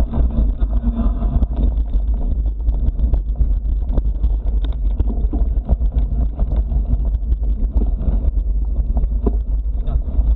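Wind buffeting the microphone of a camera riding on a moving mountain bike, a steady deep rumble, with rattles and knocks from the bike rolling over a rutted dirt track.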